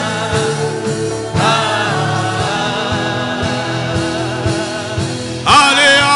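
Gospel music: a choir singing with wavering, held notes over sustained backing and a beat about once a second, growing louder near the end.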